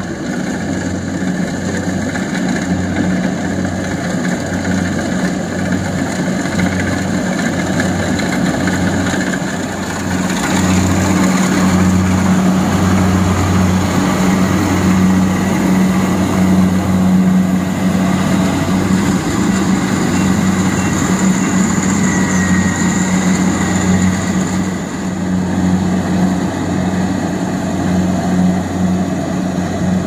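Kubota DC-70 rice combine harvester's diesel engine running steadily under load while cutting and threshing rice, a low pulsing hum. It grows louder about ten seconds in.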